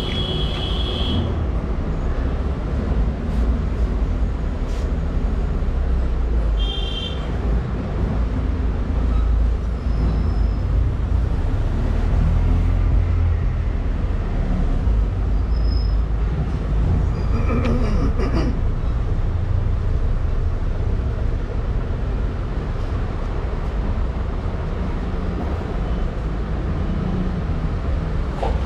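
Steady low rumble of background road traffic, with a few short high-pitched squeaks near the start and about seven seconds in, and a brief clatter of metal about two-thirds of the way through.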